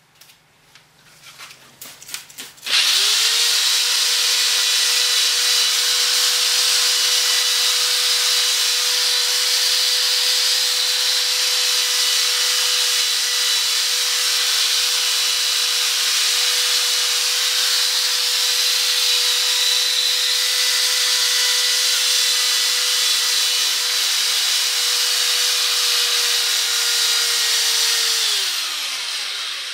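Electric drill wet-sanding a plastic headlight lens with a disc on its backing pad. It spins up quickly about three seconds in after a few light handling clicks. It then runs at one steady speed with the disc hissing against the lens, and winds down with a falling pitch near the end.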